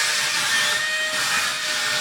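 Tonor wall-climbing RC car's suction fan running: a steady whirring hiss with a faint high whine held through it.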